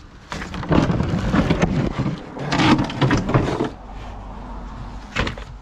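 Handling noise of things being moved about: irregular clattering, knocking and rustling for about three seconds, then quieter, with a sharp knock near the end.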